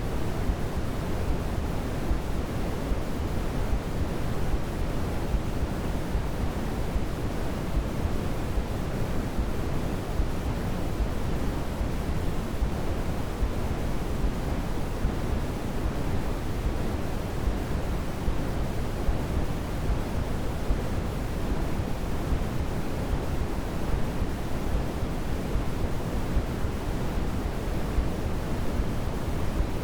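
Steady, unbroken electronic sleep noise (sold as white noise), a deep even hiss weighted toward the bass, with no swells or changes.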